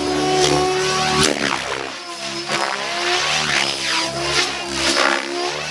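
Mikado Logo 700 electric RC helicopter flying 3D aerobatics: the rotor blades whoosh in repeated surges, about one a second, as pitch and attitude change, over a steady pitched drone from the spinning head.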